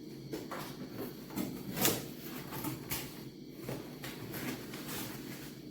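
A string of light knocks and clicks, about one every half second to second, from things being handled, over a steady low hum.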